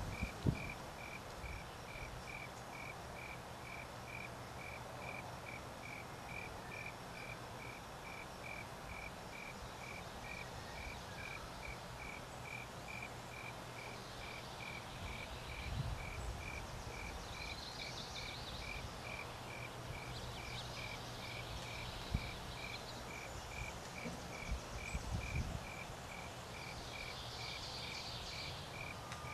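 Insect chirping steadily, about two short chirps a second, with fainter, higher trills now and then. A few dull low thumps come near the start and in the second half.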